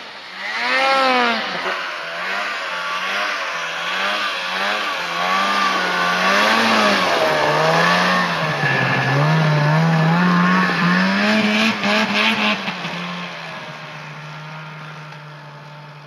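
Snowmobile engine revving up and down over and over as the sled is throttled through deep snow, then holding a steady pitch near the end. A few brief clattering taps come about two-thirds of the way through.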